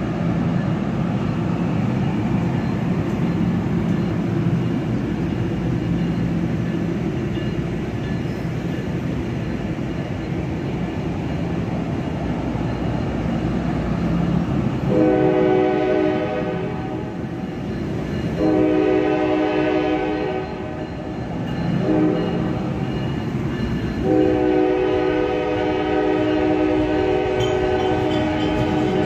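NJ Transit multilevel coaches rolling past a platform, a steady rumble of wheels on rail. About halfway a train horn sounds a chord in long, long, short, long blasts, the pattern of a grade-crossing signal, and the last blast is held for about five seconds.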